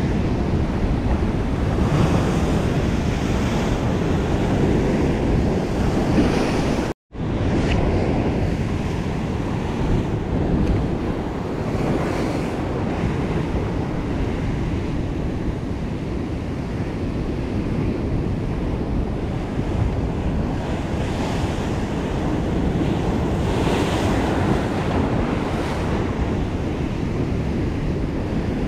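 Ocean surf breaking and washing over rocks, a steady rush, with wind buffeting the microphone. The sound cuts out completely for a split second about seven seconds in.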